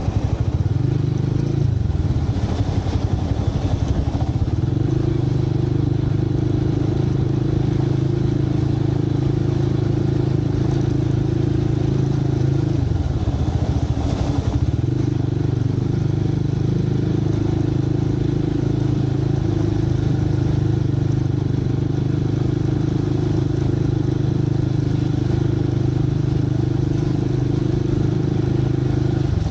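Motorcycle engine running steadily while riding, heard from on the bike with road and traffic noise around it. The engine note dips for a moment about thirteen seconds in, then comes back to the same steady pitch.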